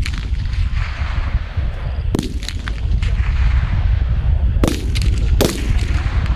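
Rifle shots on a live-fire range: four sharp reports, one at the start, one about two seconds in and two in quick succession near the end, over a steady low rumble.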